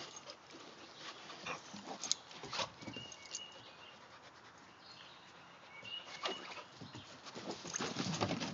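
Two dogs play-fighting, a German Shepherd puppy and a golden-coloured dog: paws clattering and scrabbling on wooden deck boards and a lounge chair, with dog vocalising mixed in. The loudest stretch comes near the end as they wrestle.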